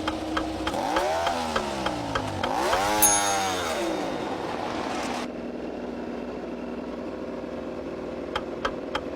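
Motorbike revving sound: two swells that each rise and then fall in pitch, over light, regular clicking.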